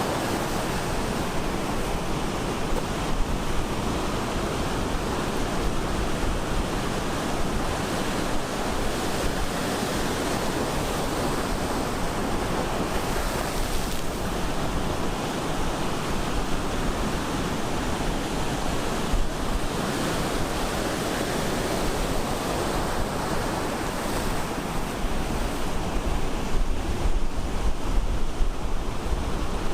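Ocean surf breaking on a beach: a continuous rushing wash of waves at a steady level, growing a little louder and rougher near the end.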